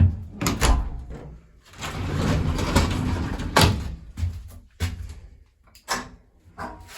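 A sliding door being moved and banged: a sharp knock, a rolling, scraping slide lasting about two seconds, then several more knocks and clatters.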